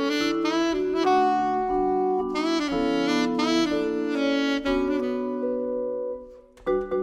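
Live jazz duo of saxophone and vibraphone: the saxophone plays a fast, bending melodic line over sustained vibraphone chords. Near the end the music dips briefly, then the vibraphone comes back in with quick repeated struck chords.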